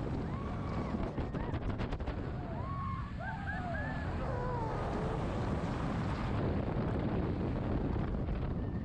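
Riders on the Shambhala roller coaster shrieking and yelling as the train crests the lift hill and plunges down the first drop, over a steady rush of wind on the microphone. A quick run of clicks sounds about a second in, before the screams start.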